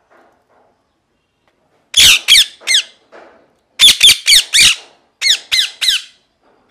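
Rose-ringed (ringneck) parakeet screeching loudly in three rapid bursts of three to five short calls each, every call a quick downward-sliding shriek.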